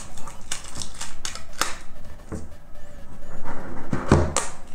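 Cardboard phone box being opened by hand: a run of small clicks, scrapes and rustles as the lid is worked loose and slid off, with a dull thump a little past four seconds in.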